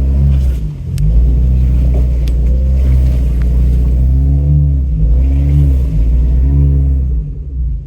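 Off-road truck's engine running at low speed while crawling over a rutted dirt track, with several throttle blips that rise and fall in pitch in the second half. It drops back to a quieter idle near the end.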